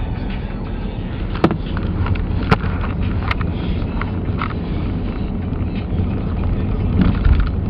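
Car driving across a frozen lake on the ice, a steady low rumble of engine and tyres. A few sharp knocks or clicks sound about a second and a half, two and a half, and three seconds in, with more near the end.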